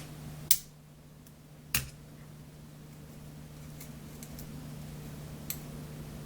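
Sharp clicks of a tool working at a stiff C-clip on a DOM ix KG lock cylinder: two loud snaps about a second apart near the start and a fainter tick later, over a steady low hum.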